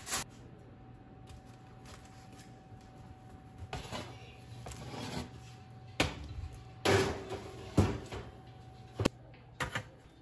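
Kitchen clatter as baked English muffins are handled: a handful of sharp knocks and clanks of a metal sheet pan and metal spatula, the loudest about seven to eight seconds in, over a faint steady hum.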